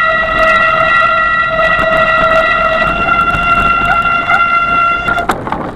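Bicycle brake squealing: one loud, steady high-pitched squeal held for several seconds over the rumble of tyres on a dirt trail, cutting off suddenly near the end as the brake is let go.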